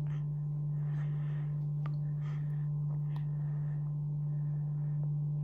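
A steady low hum, with faint soft scrapes and a few small ticks as thick slime is poured from a plastic cup and nudged along with a plastic stirrer.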